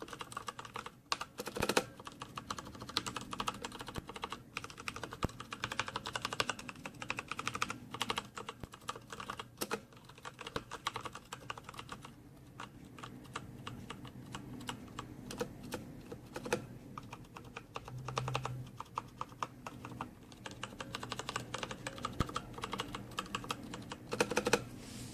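Typing on a Patriot Viper V760 mechanical keyboard with Kailh Brown switches: a rapid, irregular run of key clacks, with louder strikes about two seconds in and again near the end.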